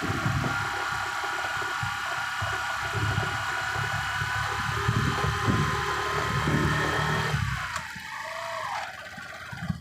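Vehicle running, a steady low rumble with hiss that drops away about three quarters of the way through, leaving fainter wavering higher sounds.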